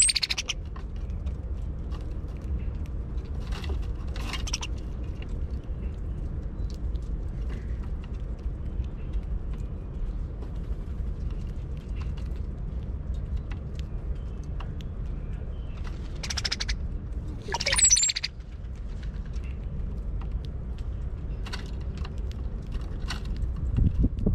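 Brown-headed cowbirds calling: a few short high calls about four seconds in, and a louder call with a very high thin whistle around seventeen seconds in, over a steady low rumble.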